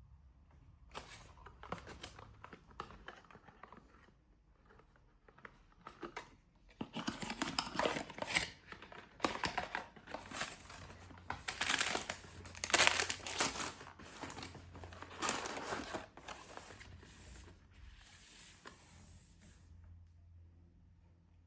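Happy Meal packaging being handled and torn open: irregular crinkling and tearing, busiest and loudest in the middle, dying away near the end.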